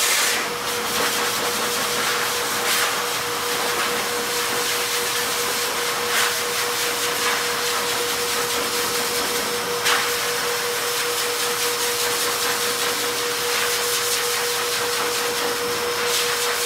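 Shernbao high-velocity pet grooming dryer blowing air through its hose and nozzle into a wet dog's coat: a steady rush of air with a constant motor whine.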